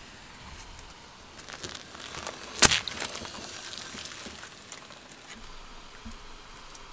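A balloon bursting under a car tyre on asphalt: one sharp pop about two and a half seconds in, with faint crackling and light ticks around it.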